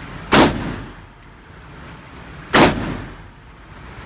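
Two gunshots about two seconds apart, each sharp crack followed by a fading echo.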